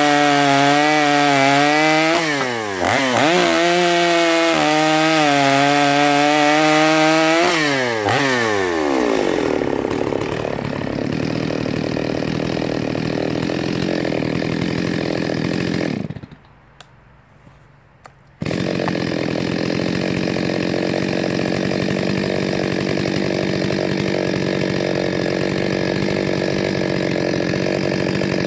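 Stihl 025 chainsaw's two-stroke engine running at high revs, dipping briefly about three seconds in, then winding down about eight seconds in to a lower, rougher steady running sound. The sound breaks off for about two seconds past the middle and resumes steadily.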